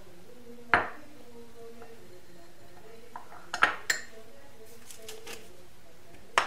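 A small metal spoon clinking sharply against kitchenware four times: once about a second in, twice in quick succession midway, and once at the end.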